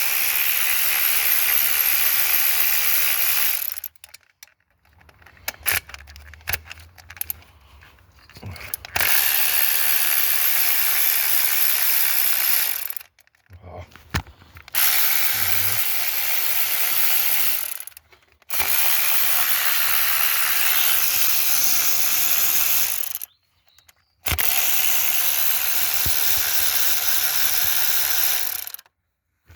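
Battery-powered power tool running in five bursts of about three to five seconds each, with short pauses between, undoing bolts on the manifold.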